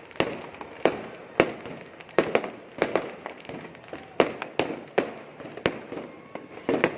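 Fireworks going off in quick succession: a string of sharp bangs, about two a second at uneven spacing, each with a brief echo.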